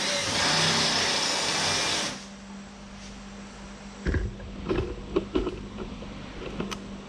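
A power tool runs with a loud, even hissing whir and cuts off about two seconds in. It is followed by several sharp knocks and clunks about four to five and a half seconds in, over a steady low hum.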